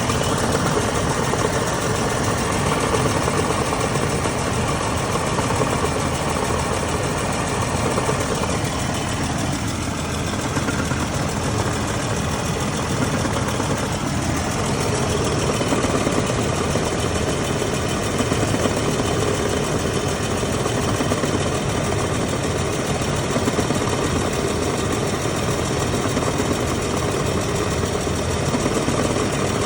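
Vehicle engine idling steadily, with the noise coming from its 4L30E four-speed automatic transmission at idle.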